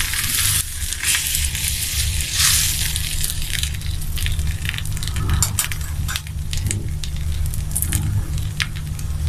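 Flipped egg-and-flour crepe sizzling on a hot oiled griddle: a steady hiss with many scattered little crackles, over a low steady hum.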